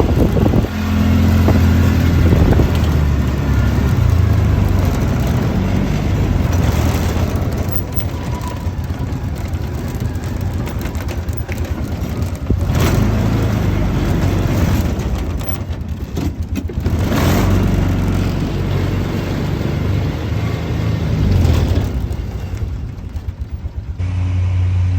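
Engine running steadily close by with a deep hum, its level swelling and easing several times.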